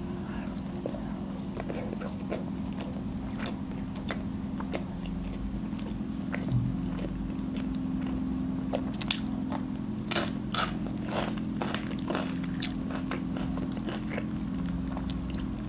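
Close-up chewing and biting of grilled chicken, with small mouth clicks throughout and a few sharper crunches about nine to eleven seconds in. A steady low hum runs underneath.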